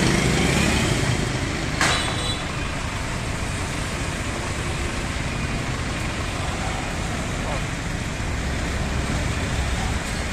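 Steady road-traffic noise, with one sharp click or knock about two seconds in.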